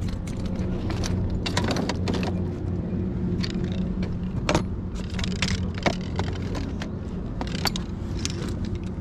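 Fishing gear being handled and packed onto a carry cart: rods, reels and a cooler knocking together in a scatter of light metallic clicks and rattles. A steady low hum runs underneath.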